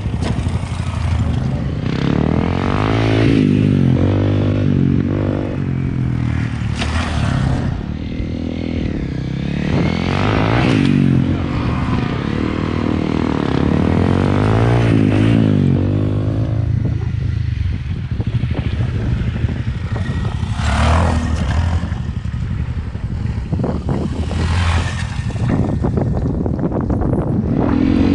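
Single-cylinder Honda motorcycle engine running under a rider, revving up and dropping back over and over as the bike accelerates, shifts and slows.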